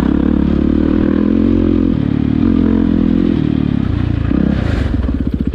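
Dirt bike engine running loud and steady, its pitch shifting a little with the throttle. About four and a half seconds in it drops to a slower, pulsing beat where the single firing strokes come through.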